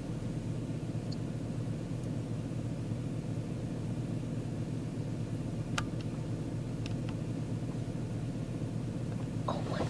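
Steady low hum of an idling engine, with a few faint clicks a little past the middle.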